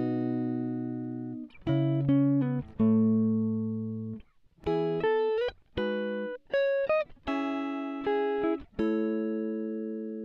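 Background music: a slow instrumental of plucked guitar notes and chords, each struck and left to ring and fade.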